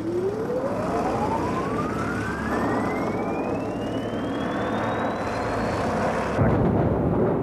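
Produced whoosh sound effect of rushing through a tunnel: a rushing roar with a whistling tone that rises steadily in pitch for about six seconds, then a louder, deeper rush near the end.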